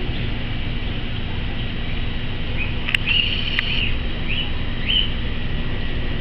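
Steady low hum and rumble of aquarium pumps and water filtration. A few short, high, rising squeaks and two sharp clicks come in the middle.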